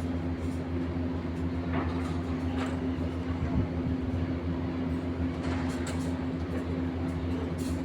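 Machinery running with a steady low drone, with a few short clicks and knocks over it.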